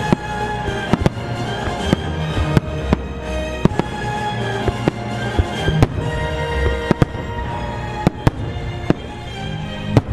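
Aerial fireworks bursting in an irregular string of sharp bangs, one or two a second, over music playing at the same time.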